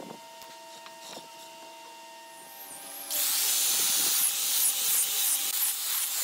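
Angle grinder with a sanding disc starts about three seconds in and sands a curved hardwood handrail, a loud steady hiss of abrasive on wood. Before it starts there is only a faint steady hum with a few light taps.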